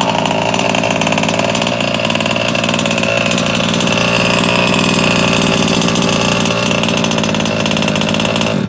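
The two-stroke gasoline engine of a Losi 5IVE-T 2.0 quarter-scale RC truck, running steadily at idle. It cuts off suddenly at the very end.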